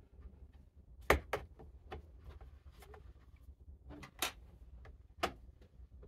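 Sharp plastic clicks and snaps as a plastic pry tool works at the corner of a laptop's bottom cover to lift it off: a scattered series of single clicks, the loudest about a second in and others around four and five seconds.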